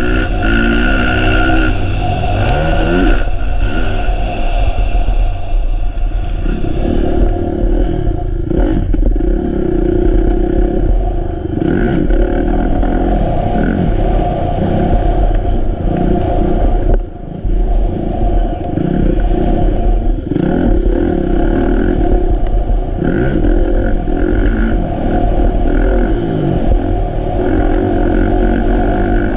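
Kawasaki KX450F motocross bike's single-cylinder four-stroke engine, heard up close from on board. It revs up and backs off again and again through the corners and straights. The throttle shuts briefly a little past halfway.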